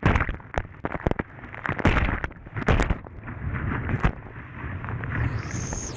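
Whitewater crashing over a kayak's bow-mounted camera as it is buried in a big river rapid: a muffled rush of water with many sharp splashes. About five seconds in, the sound opens up as the camera comes back out of the water.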